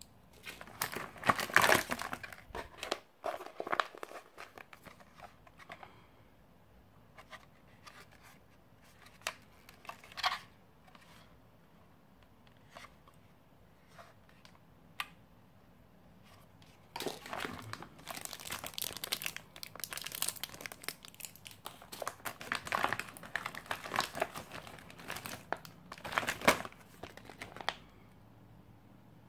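Plastic and foil-laminate ration pouches crinkling as they are handled and turned over. There is a burst of crinkling about a second in, a few scattered rustles through the middle, then dense crinkling again for most of the last ten seconds.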